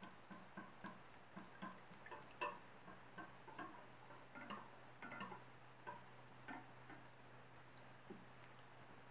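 Whisk stirring a thin liquid custard mixture in a stainless steel saucepan, its wires ticking against the pan about three times a second. The ticks thin out after about six seconds.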